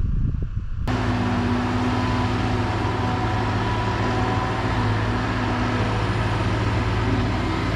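Caterpillar hydraulic excavator's diesel engine running steadily, a constant hum under a wash of engine noise, starting abruptly about a second in.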